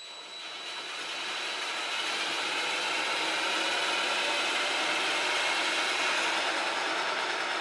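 DeWALT drill spinning a bare lawnmower blade on a balancing shaft: the motor and the rush of the blade build up over the first two seconds, then run steadily. It is a test spin with no weights on the blade, to measure the blade's own unbalance.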